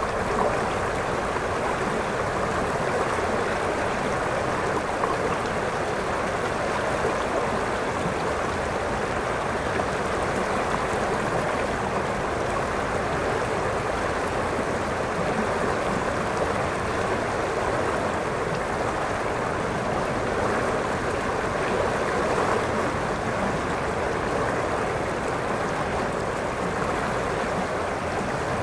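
River water rushing steadily over a shallow rocky riffle, an even, unbroken rush of noise.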